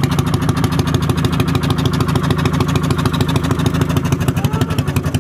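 A small engine running steadily at an even pace, with a fast, regular beat.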